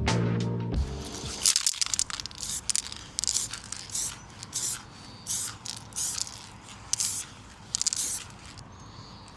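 Music ends about a second in, then a spray hisses in a series of about a dozen short bursts, roughly one every half second to second, growing fainter toward the end.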